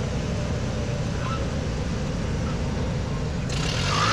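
Pitts S-1S biplane's engine running at low power during a landing, a steady low rumble mixed with wind rush, heard from inside the cockpit. About three and a half seconds in, a louder rushing hiss rises over it.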